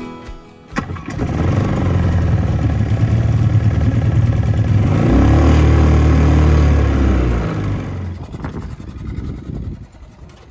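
Small Suzuki outboard motor on an inflatable dinghy starting about a second in and running, revved up and eased back around the middle, then fading near the end.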